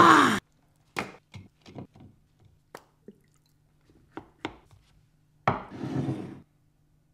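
A short shout falling in pitch right at the start, then a string of light taps and clicks as cooked rice is scooped with a plastic rice paddle into a wooden bowl. Near the end, a glass baking dish scrapes across a wooden tabletop for just under a second.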